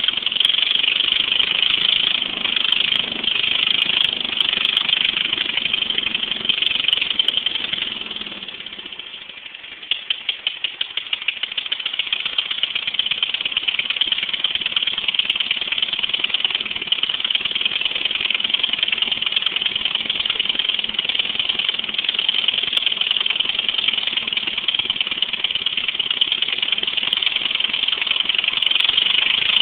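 Racing lawnmower's 700cc Briggs & Stratton engine running through open exhaust headers. About nine seconds in, it drops back to a slow beat of separate pops, then picks up again and runs steady.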